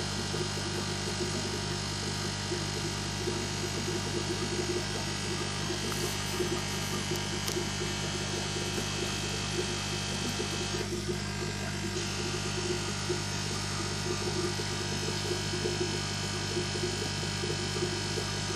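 Steady electrical hum and buzz of running aquarium equipment.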